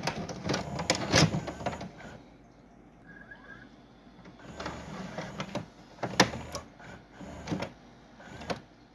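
Synthetic sound effects for an animated logo intro. A run of sharp clicks and hits comes first, then a lull with a short falling tone about three seconds in, then more scattered hits.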